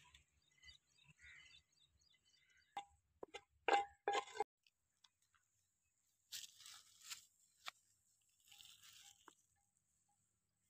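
Faint clicks and knocks of a clay bowl against a clay cooking pot, with crunchy rustling as sliced onions drop in; a few of the knocks ring briefly. Later come two short patches of faint hiss.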